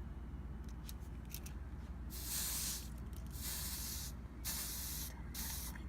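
Hot soldering iron tip wiped on a wet sponge, sizzling in several short hissing bursts with brief gaps between, to clean molten solder build-up off the tip. A few faint clicks come before the first burst.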